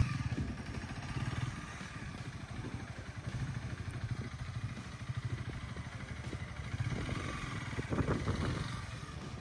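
Honda Rebel cruiser motorcycle's engine running at low speed with a quick, even pulse as it is ridden slowly through a start-and-stop practice run, briefly louder near the end.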